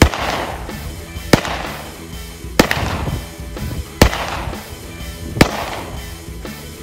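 Five handgun shots fired at a steady pace, about one every 1.4 seconds, each a sharp crack followed by a short fading echo.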